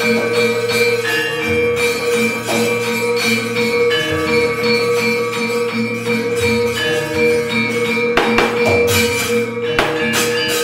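Javanese gamelan music accompanying wayang kulit, with bronze metallophones ringing steadily under regular metallic jangling strikes. A burst of louder clattering strikes comes about eight seconds in and another near ten seconds.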